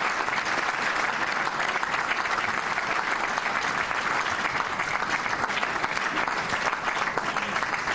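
Audience applauding, a dense steady clapping that holds without a break.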